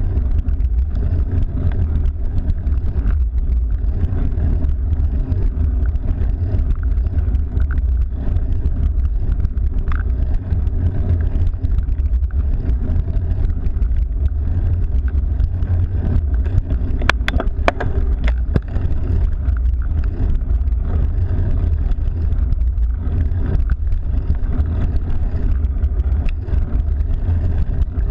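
Steady low rumble of wind buffeting the microphone while riding a cyclocross bike, mixed with tyre and road noise. A few sharp clicks come past the middle.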